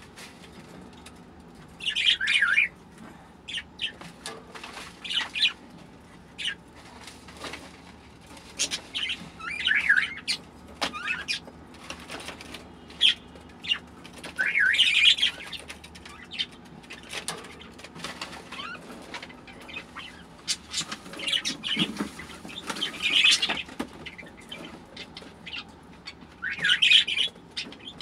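Small caged pet birds giving short, high chirps every few seconds, over rustling and light knocks as the cage's plastic tray, paper liner and nesting straw are handled.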